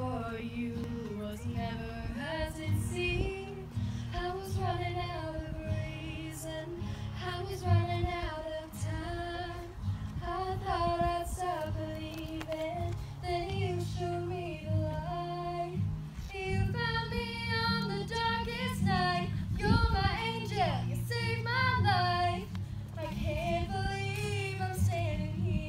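A young woman singing solo into a handheld microphone over steady instrumental backing, her sung phrases rising and falling with short breaths between them.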